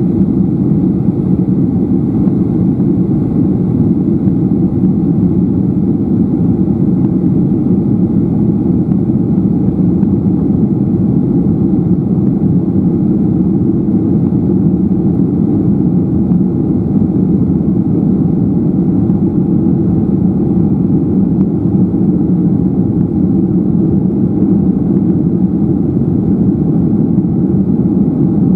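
Steady cabin drone of a Garuda Indonesia Boeing 737-800 in its climb after takeoff: jet engines and rushing airflow heard from a window seat over the wing. A deep, even roar with no changes.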